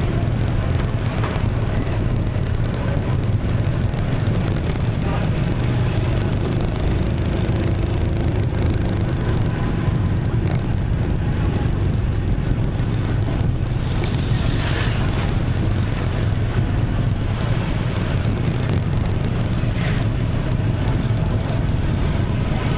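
Street traffic heard from a moving motorbike: a steady low rumble of the bike and surrounding vehicles, with other vehicles briefly passing close, most plainly about two-thirds of the way through.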